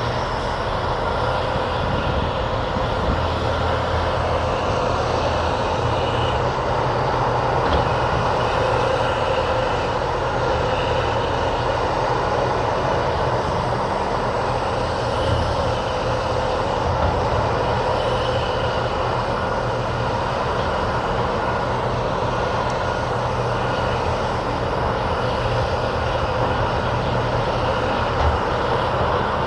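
Heavy construction machinery's diesel engine running steadily, a continuous drone with no pauses.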